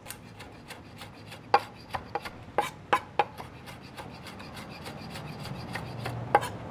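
Chef's knife chopping pickled jalapeño slices on a wooden cutting board: quick, irregular knife strikes on the wood, several a second, with a few louder chops among them.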